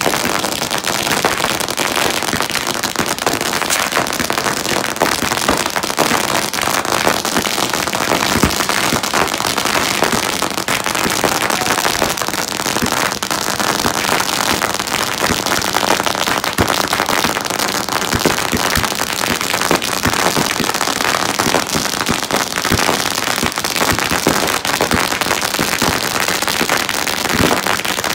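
Ground fireworks and firecrackers going off: a dense, continuous rapid crackling and popping that stays loud and even throughout.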